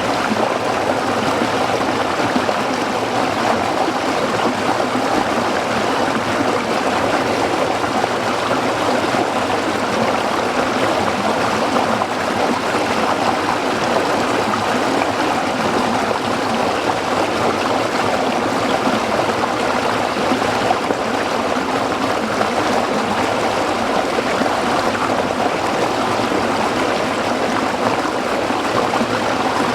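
A small stream running over rocks, a steady babbling rush of water.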